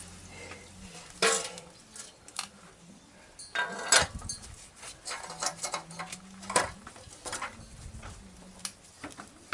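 Metal clinks and knocks as a chrome exhaust header pipe is handled and worked into the exhaust port of an air-cooled four-cylinder motorcycle engine. The clinks come irregularly, with louder clanks about a second in, around four seconds and near seven seconds.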